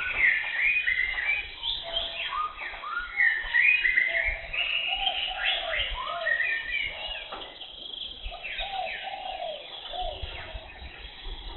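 Several birds calling at once in tropical forest: a dense chorus of short, quick chirps and whistled notes that swoop up and down, busier and louder in the first half, over a low irregular rumble.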